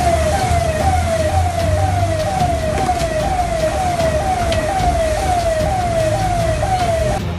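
Electronic siren sounding a fast repeating falling tone, about two cycles a second, over a steady low rumble; it cuts off abruptly near the end.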